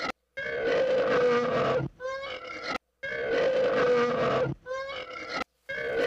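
An elephant trumpeting: the same loud call, a held tone followed by wavering, bending notes, repeats three times, about every two and a half seconds, with an abrupt short silence between repeats.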